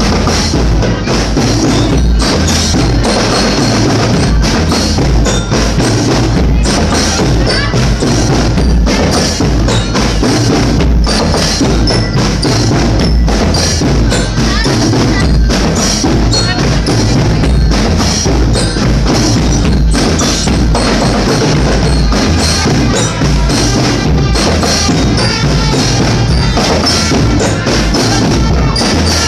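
Music with busy, rapid percussion over a steady low bass.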